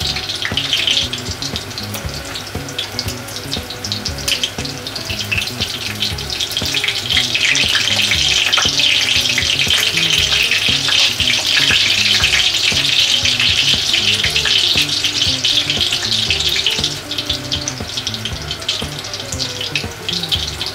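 Pork cutlets coated in okara powder and crumbled koya-dofu shallow-frying in pure olive oil in a cast-iron skillet: a steady crackling sizzle that grows louder through the middle and eases off near the end.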